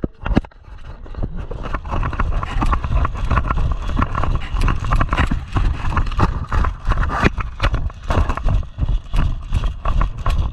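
A person running on foot, quick uneven footfalls thudding with heavy low rumble.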